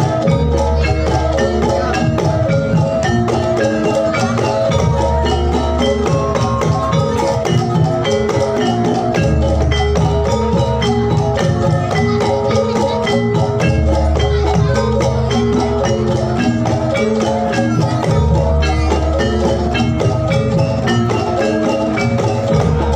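Javanese gamelan music for a jathilan dance, played loudly over a sound system: metallophones ring out a quick, busy melody, with a deep low boom recurring about every four to five seconds.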